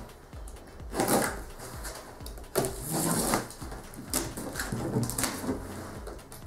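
Cardboard box flaps being pulled open and handled: irregular rustling and scraping of corrugated cardboard in several short bouts.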